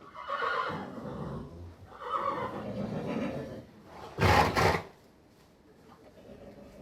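A horse neighing: two drawn-out calls in the first few seconds, then two short, loud, noisy blasts about four seconds in.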